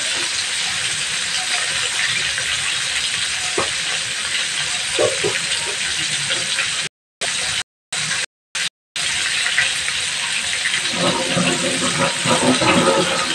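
Coated chicken pieces frying in hot oil in a wok, giving a steady sizzle. The sound cuts out briefly four times midway.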